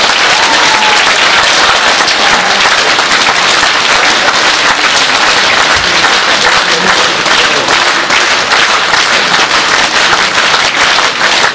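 Theatre audience applauding, a dense, even clapping of many hands.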